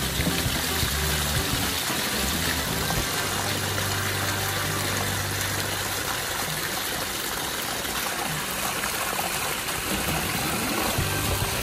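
Steady rush of running water, with background music and its low bass line over it.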